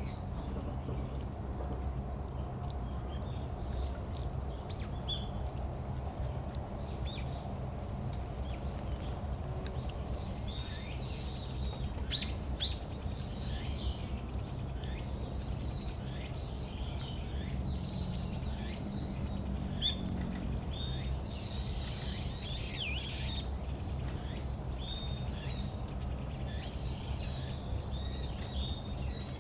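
Small forest birds giving many short, thin high calls in quick succession, mostly from about a third of the way in, over a steady high-pitched insect trill.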